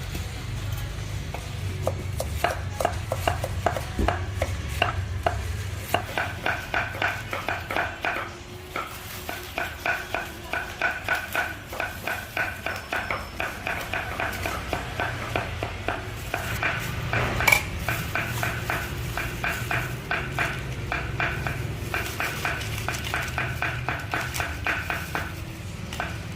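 A metal ladle or spoon clinking rhythmically against a metal pot, about three strikes a second, as soup or curry is stirred, with one louder clang about two-thirds of the way through. A steady low hum runs underneath.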